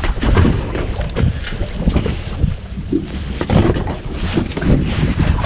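Wind buffeting the microphone on the open deck of a small fishing boat at sea: a heavy low rumble that swells and drops irregularly, with a few short knocks mixed in.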